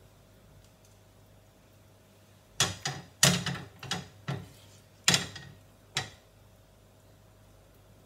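Kitchen utensil clatter: about seven sharp knocks and scrapes over three seconds as a spatula works and taps around a frying pan sitting on a gas stove grate. There is no sizzle, as the heat is off.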